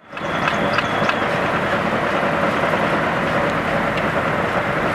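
Old-fashioned circular sawmill running: the large saw blade spinning on its belt-driven mandrel, with a steady mechanical din from the drive and a few light knocks in the first second. No cut is being made.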